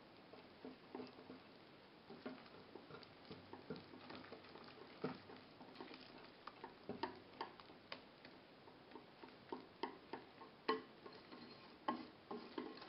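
Wire whisk clicking and scraping against a glass mixing bowl as flour is stirred into wet ingredients to make batter, in quick irregular taps that grow louder later on.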